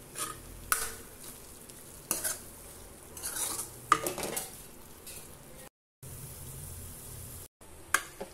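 Metal ladle stirring and scraping paneer bhurji around a metal kadai in irregular strokes, with one sharp clink of ladle on pan about four seconds in, over the mixture sizzling.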